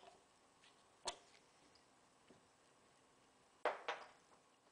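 Faint, sharp metallic clicks from a lathe setup: a hex-key broach in the tailstock drill chuck being worked into a brass workpiece. There is one click about a second in and two more close together near the end.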